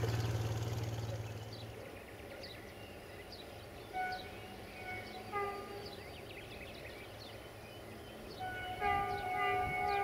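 Diesel locomotive's multi-note horn: two short toots about four and five and a half seconds in, then a longer blast starting near the end. Birds chirp throughout, and a low rumble fades away over the first two seconds.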